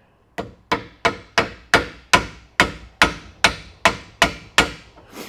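Soft-faced mallet tapping a wooden dowel against a ball screw bearing in its support block: about a dozen even, sharp taps, a little under three a second. The taps nudge the bearing inward so the ball screw's retaining C-clip can seat in its groove.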